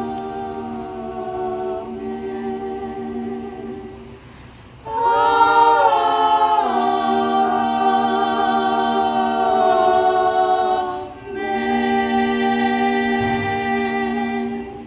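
Small choir singing a cappella in long held chords. A louder phrase enters about five seconds in, there is a brief breath near eleven seconds, and a final chord is held and then released just before the end, closing the hymn.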